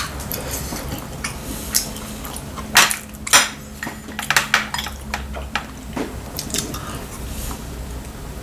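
Chopsticks clicking against ceramic bowls and the stew pot while eating, a string of light clinks with the two loudest close together about three seconds in.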